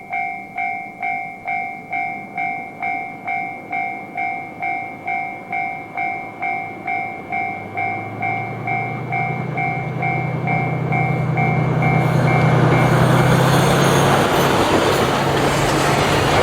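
Railway level-crossing warning bell dinging about twice a second. From about eight seconds in, the low drone of a JR Freight DF200 diesel-electric locomotive grows under it. From about twelve seconds the freight train passes, and its loud wheel and engine noise drowns out the bell.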